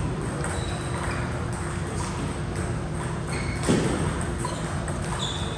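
Indoor sports hall ambience: a steady din with scattered short high squeaks and light knocks, and one brief louder squeal about three and a half seconds in.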